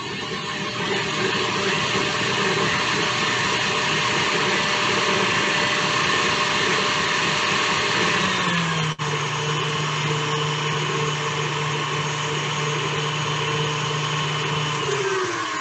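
Electric mixer whipping shea butter lotion in a bowl: a steady motor whine that drops to a lower speed about eight to nine seconds in, with a brief click, then winds down near the end.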